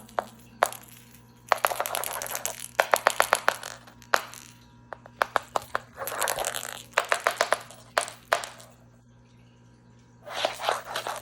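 Cat toy rattling as it is rolled along the floor, in repeated bursts of quick clicks about a second long each, with short pauses between.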